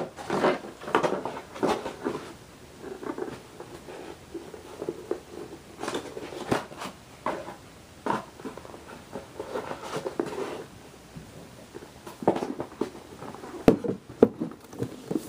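Handling noises from a box set being rearranged: irregular soft knocks, taps and rubbing as pieces are moved and fitted back in, with a few sharper knocks near the end.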